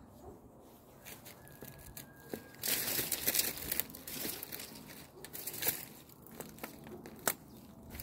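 Dry grass, dead leaves and twigs crackling and snapping as someone moves through brush on foot. It is loudest and most continuous about three seconds in, with a few single sharp snaps after.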